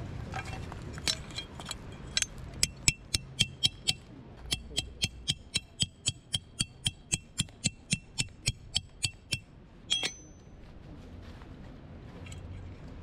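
A titanium tent peg is hammered into stony riverbank ground with a metal-headed peg hammer. The blows give a quick run of ringing metallic strikes, sparse at first and then about three or four a second, which stop about nine seconds in. A final double tap comes about a second later, and the peg is in.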